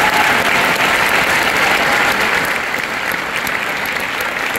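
A large audience applauding, a dense sustained round of clapping that eases a little after about three seconds.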